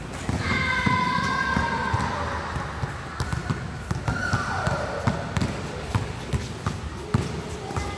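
Basketball bouncing on a hard court during play, with many short thuds of dribbles and players' footfalls, and a few shouted calls from players, about half a second in and again around four seconds in.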